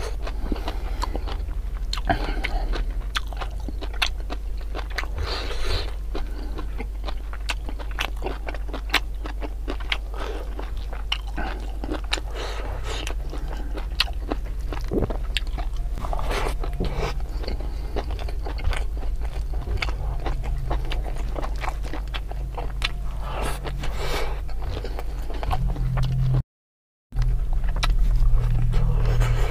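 Close-miked chewing and lip-smacking of food eaten by hand, a dense run of sharp wet mouth clicks, over a steady low hum. The sound drops out briefly near the end.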